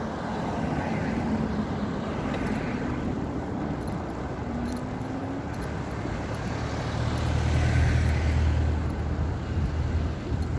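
Road traffic: cars and a van passing along the road, a steady wash of tyre and engine noise that swells to a louder low rumble as a vehicle goes by about seven seconds in.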